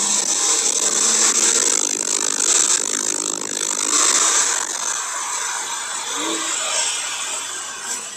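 Porsche 992 Carrera 4S's twin-turbo flat-six and loud hiss of tyres throwing spray on a flooded track, heard from inside the car. The sound fades through the second half as the car brakes and shifts down from fourth to second.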